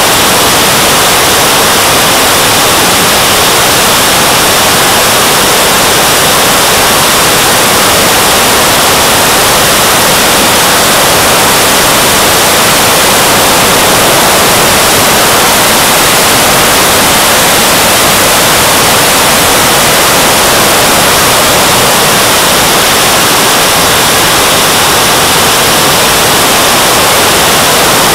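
Loud, steady hiss of a model jet's JetCat turbine and the rushing air of flight, picked up by an onboard action camera's microphone; no distinct whine or change in pitch comes through.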